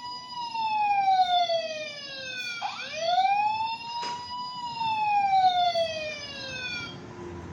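Battery-powered toy fire truck's electronic siren wailing: a tone that rises quickly and falls slowly, twice over, then stops near the end. A short click comes about four seconds in.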